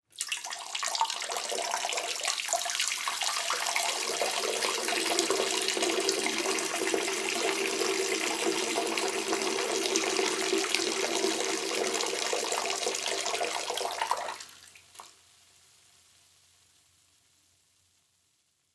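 A person urinating: a steady stream of liquid splashing, which stops about fourteen seconds in, with one last short spurt about a second later.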